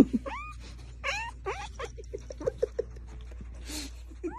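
A cat calling repeatedly: several short cries that rise in pitch, then a run of quick low yips, and another rising cry near the end.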